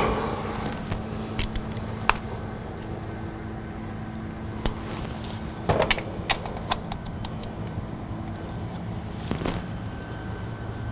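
Scattered metallic clinks and knocks of hand tools being handled and set down, about nine over a few seconds, over a steady low hum.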